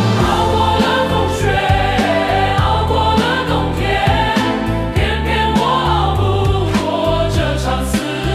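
Choir singing a Mandarin pop ballad over a backing track with steady bass and drum hits.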